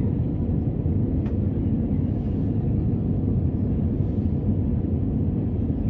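Jet airliner cabin noise in flight: the steady low rumble of the engines and rushing air heard from a passenger seat by the wing.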